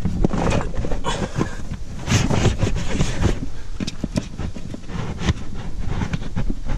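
Wind buffeting the microphone, with irregular knocks and rustles throughout.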